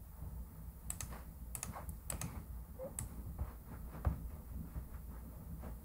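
Irregular, scattered clicks of computer keys or buttons at a desk, with the loudest near the start and around four seconds in, over a low steady hum.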